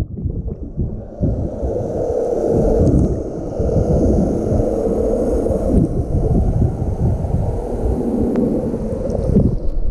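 Muffled, churning underwater water noise picked up by an action camera in its waterproof housing as it is carried through the sea during a snorkelling dive; the sound is dull and low, with almost nothing high-pitched.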